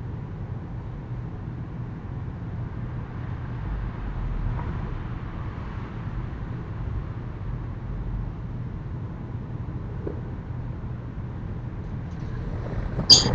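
Steady low rumble of background noise, with one sharp knock just before the end.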